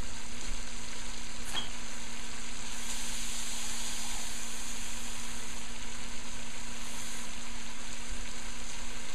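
Mutton pieces coated in blended masala sizzling steadily as they fry down in the oil in a pot, the curry cooking dry before water is added. A steady low hum runs underneath.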